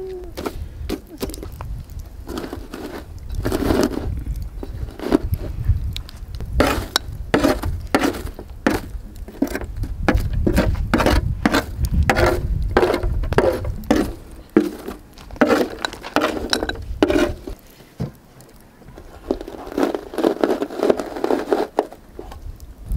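Metal tongs raking and crunching through burnt charcoal on a steel fire pan: quick runs of scrapes, crunches and clinks, easing off briefly about eighteen seconds in and starting again. A low rumble runs underneath.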